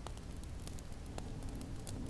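Wood fire crackling, with scattered sharp pops, over a steady low rumble of snowstorm wind.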